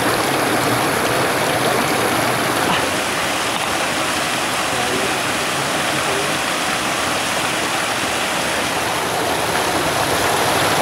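Mountain stream rushing over stones and spilling over a log, a steady noise of running water.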